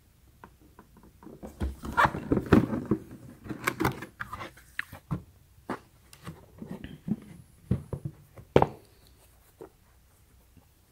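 Cardboard shoe box and the sneakers inside being handled: irregular knocks, scrapes and rustles as the lid is opened and the shoes are moved about. The handling is loudest about two seconds in, with one sharp knock near the end.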